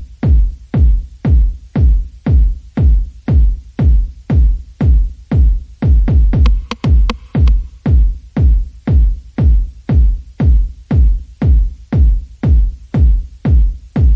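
Electronic music with a heavy kick drum on a steady beat, about two beats a second.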